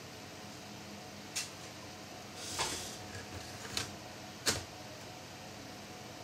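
A few sharp clicks and knocks with a short scrape between them, from handling laptop parts and tools during disassembly.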